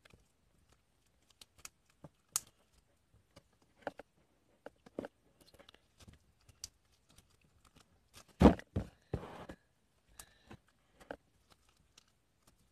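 Slime being kneaded and squeezed by hand: a scattered run of small sticky clicks and pops, with a louder burst of crackling squelches about eight seconds in.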